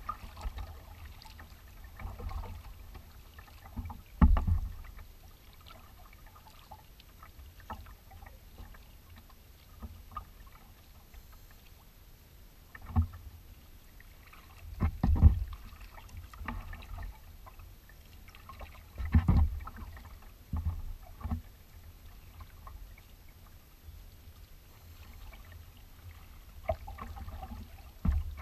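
Kayaks being paddled on open water: low, steady lapping and rushing of water along the hull, broken every few seconds by irregular thuds and splashes from paddle blades and small waves slapping the boat.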